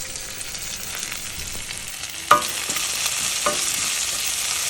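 Tempering of onions and spices sizzling in hot oil in a kadai while a metal spoon stirs it. There are two ringing clanks of the spoon on the pan, about two seconds in and a second later, and the sizzling gets louder from the first clank on.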